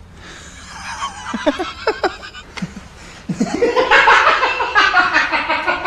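A man laughing: short snickers at first, then loud, rapid laughter from about three seconds in.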